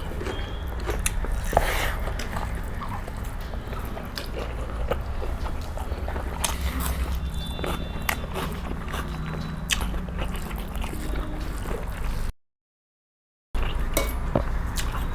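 Close-up eating sounds: chewing and biting of a home-cooked meal of rice and greens, with scattered small clicks and taps over a steady low hum. The sound cuts out completely for about a second near the end.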